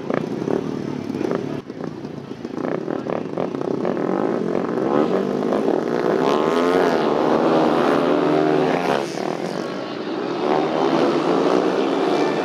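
Several speedway motorcycles revving at the start line and then accelerating away in a race, their engines overlapping and rising and falling in pitch, loudest in the second half with a short dip shortly before the end.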